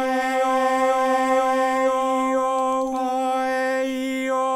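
Phase Plant granular generator playing grains of a recorded male voice singing vowels, holding one steady sung note around middle C. The pitch stays fixed while the vowel colour shifts slowly.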